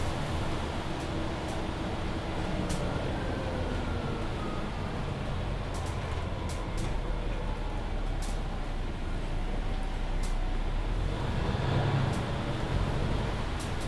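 Mercedes-Benz Citaro C2 Hybrid city bus running, heard from inside: a steady low diesel drone under a faint whine that slides up and down in pitch. A few short sharp ticks and rattles come through now and then.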